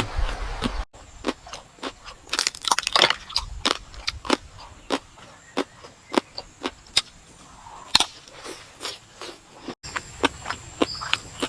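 Crunchy eating: a run of sharp, irregular crackling crunches from biting and chewing crisp food, thickest about two to three seconds in.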